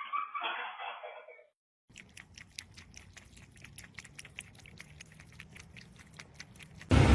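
An animal chewing and crunching food: rapid, crisp crunches, several a second, for about five seconds, after a short muffled voice-like sound in the first second and a half.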